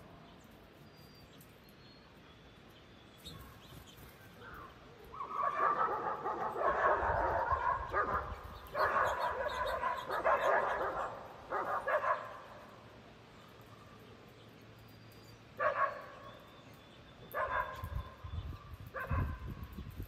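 A dog barking in several bouts of rapid barks and yips, each lasting up to a few seconds, with quiet gaps between them.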